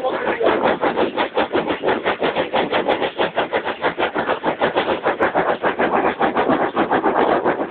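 Saddle tank steam locomotive Fulstow No. 2 working under way, its chimney exhaust chuffing in a quick, even rhythm of about six beats a second.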